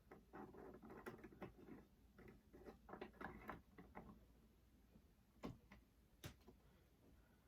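Faint clicks and handling noise as a RAM module is fitted into a late-2014 iMac's memory slot, with two sharper clicks a little past halfway.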